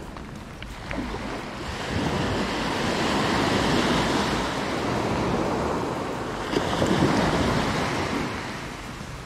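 Small sea waves breaking and washing up a sandy beach, the surf building about two seconds in and easing off near the end, with some wind on the microphone.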